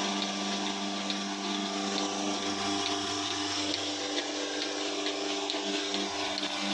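Bereket milking machine running: its vacuum pump hums steadily, with a faint regular click a little faster than once a second.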